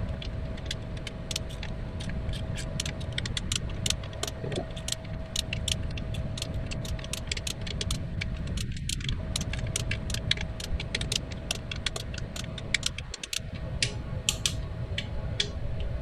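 Torque wrench ratcheting in quick, irregular metallic clicks as the transmission oil pan bolts are run down to about 8 ft-lb, one after another, over a faint steady hum.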